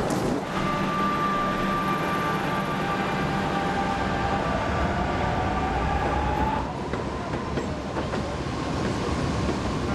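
Electric suburban commuter train running in a station, a steady rumble with a steady high whine and a slowly rising whine that both stop about two-thirds of the way through.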